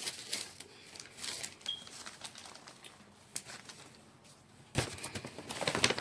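Handling noises: scattered light clicks and rustling as items are picked up and moved, busier near the end.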